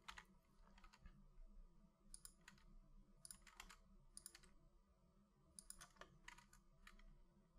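Faint, irregular clicks of a computer keyboard and mouse buttons over a low steady hum.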